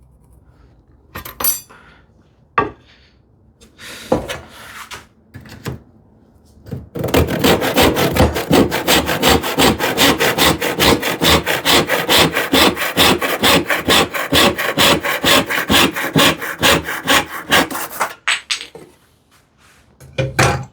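Hand saw crosscutting a stick of wood to length, a steady run of quick, even strokes for about eleven seconds in the middle, preceded by a few light knocks and rubs as the workpiece is set up.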